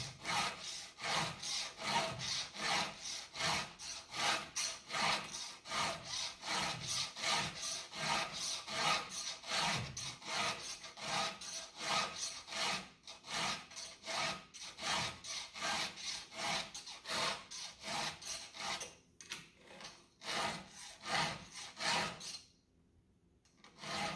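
A round file rasping across the cutters of a chainsaw chain by hand, in quick even strokes of about three a second. It pauses briefly twice near the end. The chain is badly dulled from hitting stones and needs more than a touch-up.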